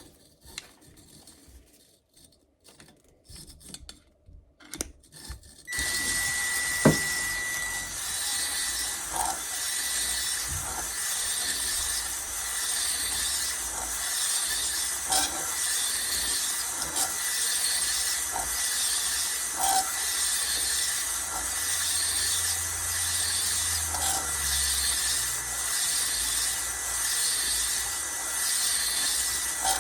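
A tool scraping back and forth in a steady rhythm of about one stroke a second, starting about six seconds in after a few faint handling sounds, with a thin steady whistle-like tone under it.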